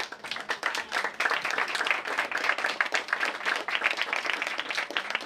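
Audience applauding, dense clapping from many hands that starts suddenly.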